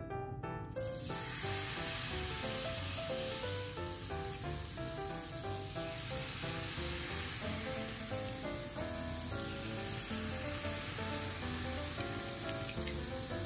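Flour-and-water batter dripped through a whisk into hot oil, sizzling steadily as it fries into tenkasu (tempura crumbs); the sizzle starts suddenly just under a second in. Background music plays throughout.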